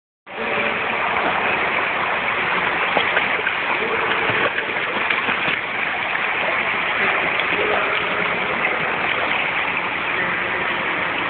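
Steady rushing of water in a swimming pool, with faint voices behind it.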